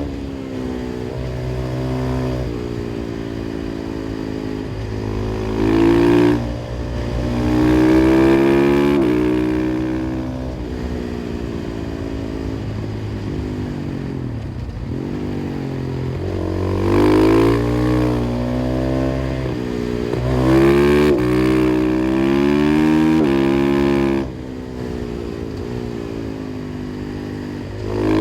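KTM 500 EXC-F single-cylinder four-stroke motorcycle engine through an FMF exhaust, ridden hard. Its pitch climbs under throttle and drops suddenly at gear changes, several times over, with one long slow fall and build about halfway through.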